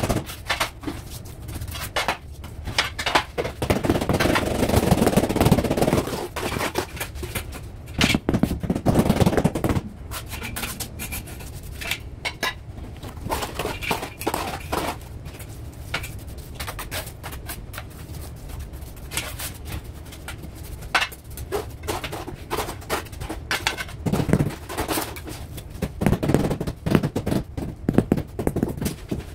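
Hand tiling work on a mortar bed: steel trowels scraping and slapping wet cement mortar, with scattered knocks and taps as tiles are set down and tapped into place.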